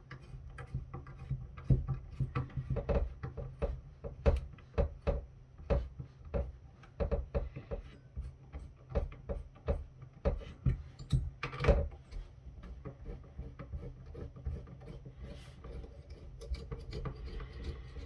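Irregular small clicks, taps and scrapes of hands and a screwdriver working the spring-loaded captive heatsink screws on a network firewall's circuit board, with a longer scrape a little past halfway. A steady low hum sits underneath.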